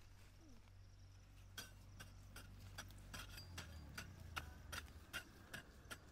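Faint, rhythmic strikes of hand hoes chopping into soil while weeding, sharp clicks about two and a half a second, starting about one and a half seconds in.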